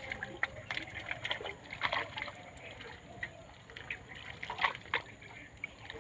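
Water splashing and trickling in small, irregular splashes.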